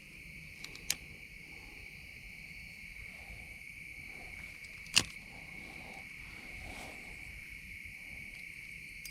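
Steady high-pitched chorus of crickets, with two sharp clicks, one about a second in and a louder one about five seconds in.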